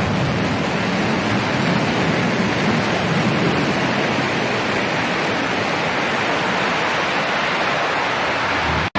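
Blue Origin New Shepard booster's BE-3 engine firing for its landing burn: a loud, steady roar with no change in pitch, which breaks off suddenly for a moment near the end.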